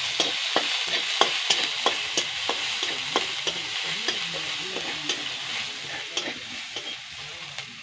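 Garlic paste sizzling in hot mustard oil in a metal wok, with the spatula scraping and clicking against the pan two or three times a second as it is stirred. The sizzle grows gradually quieter.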